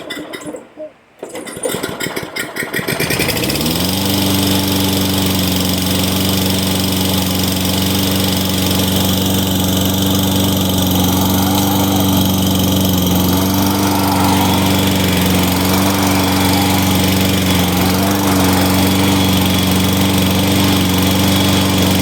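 Tecumseh 95cc four-stroke engine on a Lawn-Boy push mower firing up and rising to speed over about two seconds, then running steadily at full speed. It is running again now that its gummed-up carburetor has been cleaned.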